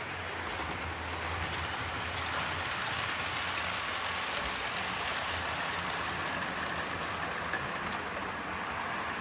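OO gauge model trains running on the layout: a steady running noise with a low hum underneath.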